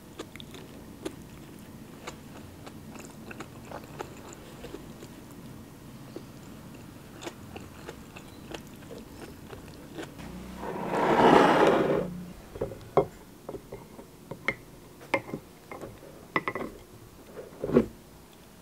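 Close-up eating sounds: chewing with small clicks as rice and chicken are eaten by hand from a plate. About eleven seconds in a louder noisy crunch or rustle lasts over a second, followed by a few sharper clicks.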